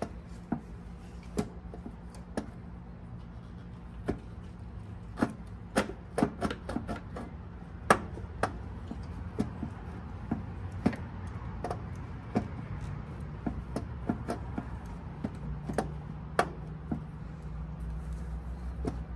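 Irregular sharp clicks and knocks of hands handling parts, clips and wiring on a motorcycle frame, with a steady low hum behind, a little stronger near the end.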